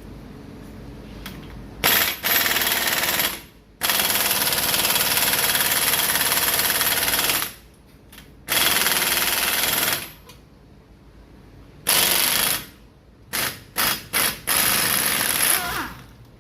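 Impact wrench hammering on the front axle's 12-point bolt to break it loose, in about seven bursts: three long runs of a few seconds each, then shorter blips near the end.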